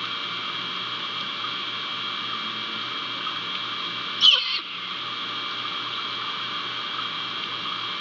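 A great horned owl gives one short, high-pitched call that slides in pitch, about four seconds in, over a steady background hiss and hum.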